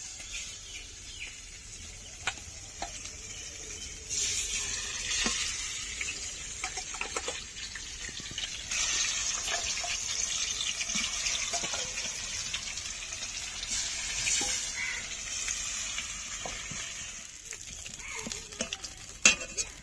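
Tangra fish pieces frying in hot mustard oil in a wok: a steady sizzle that grows louder about four seconds in, again near nine seconds and around fourteen seconds, with scattered light clicks.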